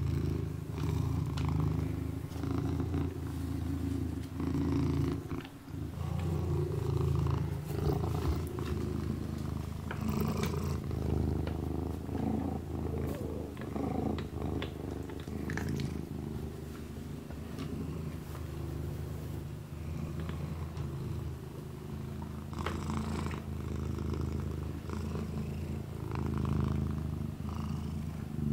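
A kitten purring steadily, with soft licking sounds now and then as it washes its paw.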